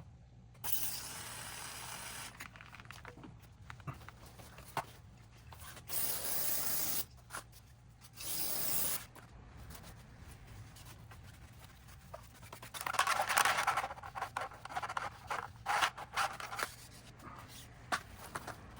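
Aerosol spray can hissing in three bursts, the first about two seconds long and the other two about a second each, as the speedometer cable is cleaned and oiled. Later come several seconds of scraping and rubbing.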